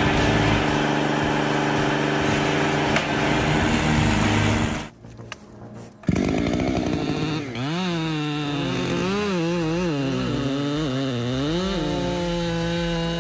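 Engine of a cutting machine running steadily. After a short break about five seconds in, its pitch rises and falls over and over as it works under changing load, then holds steady near the end.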